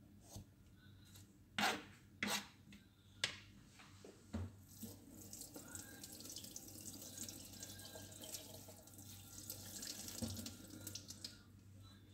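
A few sharp knocks and scrapes as a papaya is peeled with a kitchen knife. About five seconds in, a kitchen tap runs steadily over the peeled papaya as it is rinsed by hand, then stops about a second before the end.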